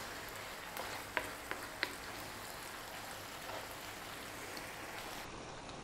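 Pasta in a creamy tomato sauce sizzling gently in a frying pan while it is stirred with a wooden spatula, with a few light clicks of the spatula against the pan in the first two seconds.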